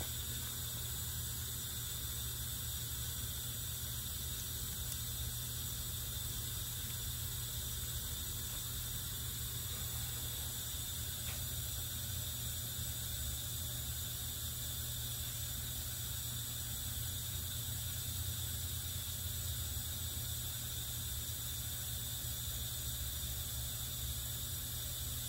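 Steady low hum and hiss of background room noise, with no distinct events apart from one faint click about eleven seconds in.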